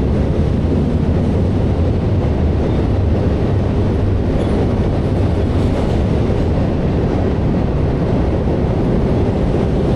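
FEC intermodal freight train's container cars rolling across a railway drawbridge: steady, loud wheel-on-rail noise with no breaks.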